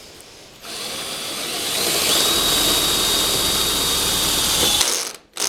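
Power drill running under load for about four seconds, speeding up over the first second or so, then holding a steady whine before stopping; a short second trigger burst follows near the end, as a hole is drilled or a screw driven to fasten the top rail.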